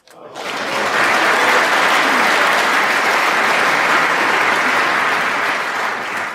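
Arena audience applauding a snooker pot on the black. The clapping builds within the first second, holds steady and begins to fade near the end.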